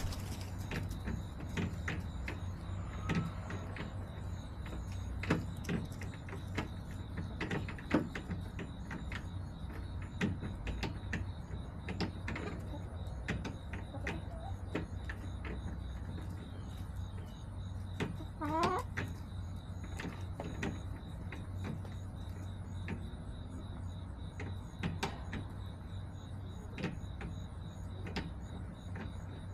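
Backyard hens in their coop: scattered sharp clicks and taps, and one wavering hen call about two-thirds of the way through, over a steady low hum.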